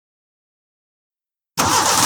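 Dead silence, then about one and a half seconds in a van engine cuts in abruptly and runs.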